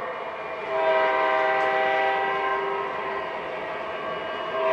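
Horn sound of an MTH RailKing O-scale SD45 model diesel locomotive: several notes held together in one blast of about two seconds, starting near one second in, then sounded again near the end.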